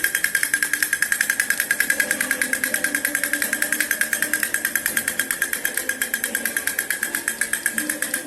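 Battery-operated toy running with a fast, steady mechanical rattle of about eight clicks a second.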